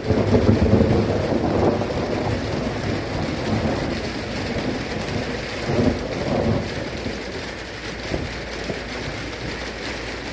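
Thunder rumbling over steady rain: the rumble is loudest in the first two seconds, swells again about six seconds in, then dies away under the rain.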